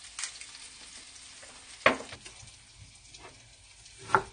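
Salmon pieces sizzling in a frying pan, with two sharp knocks, one about two seconds in and one near the end.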